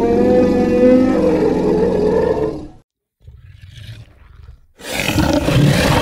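Animal roar sound effect standing in for a mastodon's call: one long pitched bellow of nearly three seconds. A faint low rumble follows, then a second, rougher roar begins about five seconds in.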